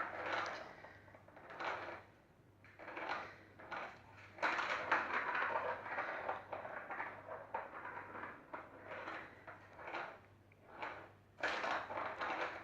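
Plastic moving cat toy clattering and scraping in irregular bursts as a kitten plays with it, over a faint, evenly pulsing low hum.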